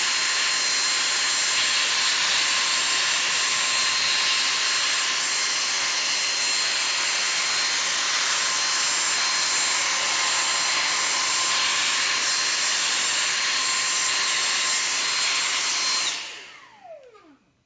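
Vacuum cleaner running steadily with a high whine as its nozzle sucks dust out of an open laptop. About sixteen seconds in it is switched off and the motor whines down, falling in pitch.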